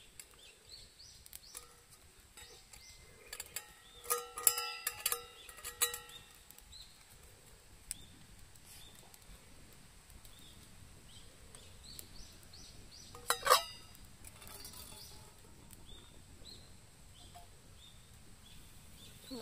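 Clinks and knocks of camp tableware or cookware being handled: a quick run of ringing clinks about four to six seconds in and one louder knock about thirteen seconds in, over faint outdoor background with small bird chirps.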